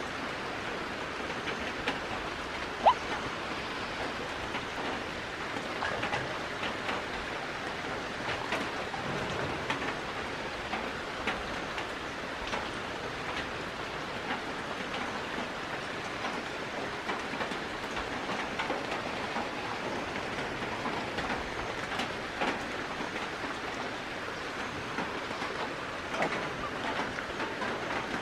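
Steady background noise like a patter, with many faint ticks throughout and one short sharp click a little under three seconds in.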